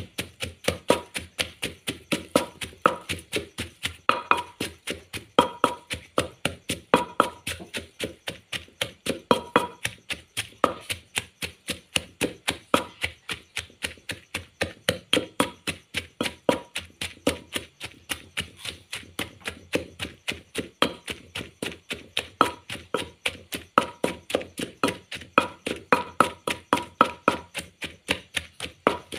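Pestle pounding grilled chilies, garlic and shallots in a clay mortar: a steady run of thuds, about three to four a second, some with a short ringing note from the clay bowl.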